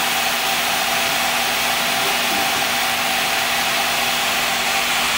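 Water refilling station machinery running: a steady hiss with a low, even hum.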